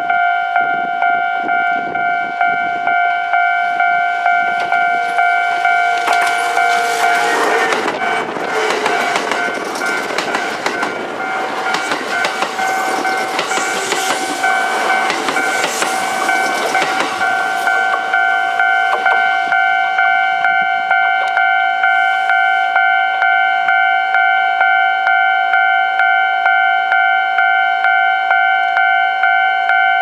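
Japanese level-crossing alarm bell ringing over and over without a break. From about six to seventeen seconds in, a Kintetsu 12200/12400 series electric limited-express train passes close by with a loud rush and its wheels clattering over the rails, then fades, leaving the bell.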